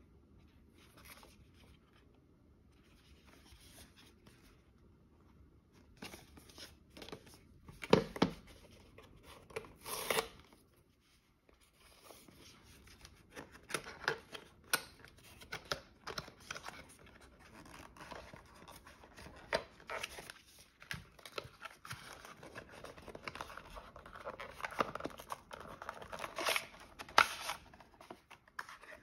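Paper packaging of an Apple silicone iPhone case being opened by hand. It is quiet at first, then come taps and snaps, paper tearing as the pull tabs are torn, and rustling and scraping of the card box and tray.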